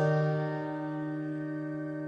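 Background music: a single held piano chord, slowly fading.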